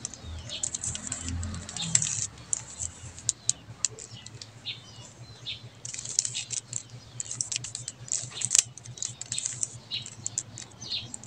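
3x3 Rubik's cube being turned by hand: quick, irregular plastic clicks and clacks as the layers are twisted.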